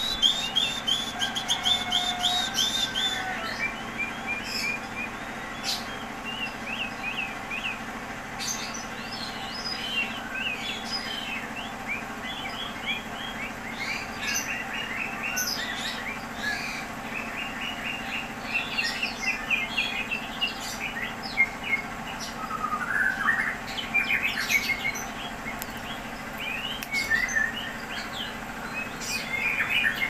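White-rumped shama (murai batu) singing a varied song of quick repeated chirps and whistled phrases, with short pauses between phrases.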